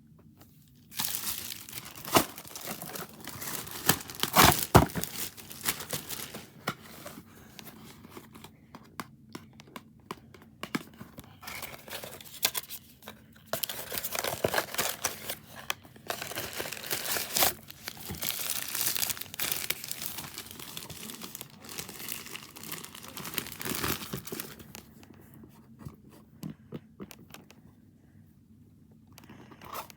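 Crinkling and tearing, like paper or plastic being handled and crumpled, in irregular bursts with sharp clicks. It dies down about five seconds before the end.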